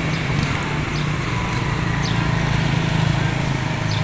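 Street ambience dominated by a steady low engine hum from traffic, with a few faint short high chirps.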